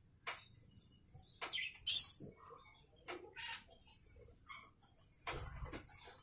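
Kitchen knife cutting a peeled banana held in the hand: a series of short scrapes and small clicks, with louder rustling cuts about two seconds in and again near the end.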